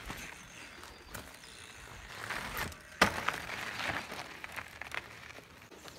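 Mountain bike tyres crunching over a gravel driveway during a 180 bunny hop into a rollback, with one loud sharp thud about three seconds in as the bike lands, and a few lighter knocks.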